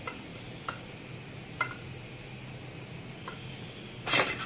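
Metal-on-metal clicks of a Yamaha RX135 aluminium crankcase half being handled over its mating half on the studs: a few single light ticks, then a louder short clatter near the end as the case is shifted.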